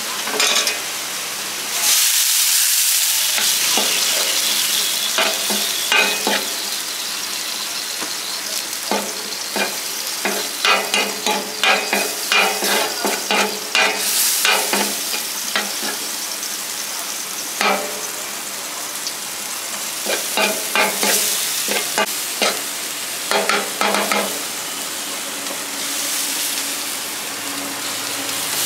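Chopped meat frying in a hot pan for tantuni, with a steady sizzle that swells loudest about two seconds in. A metal utensil stirs the meat, clacking and scraping against the pan in quick runs of strokes.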